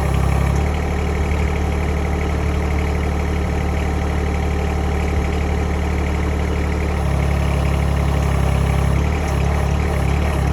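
Bad Boy 1022 tractor engine running at low idle while it drives the backhoe. The engine note steps down about a second in and comes back up near the seven-second mark, shifting again near the end.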